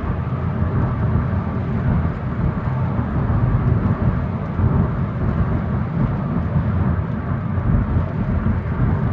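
Steady low rumbling grind from a 2000 Honda Accord LX on the move, the noise the owner hears only under acceleration, cause unknown to him.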